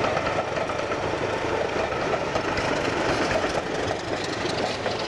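BR Class 25 diesel locomotive passing, its six-cylinder Sulzer diesel engine running steadily over the noise of coach wheels on the rails.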